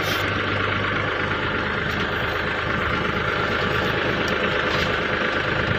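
Engine of a crash barrier installation machine running steadily.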